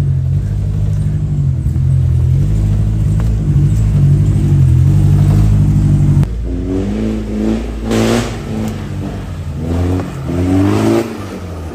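Off-road 4x4 engine running steadily, then an abrupt change about six seconds in to engine revving that rises and falls several times.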